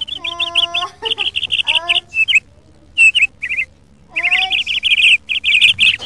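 A small bird chirping rapidly in quick runs of sharp, high chirps, with two short breaks in the middle.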